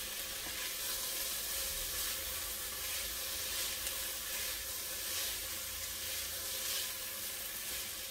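Onion, celery and bell peppers sautéing in olive oil, a steady sizzle, with the light scrape of a spatula stirring them around the pot.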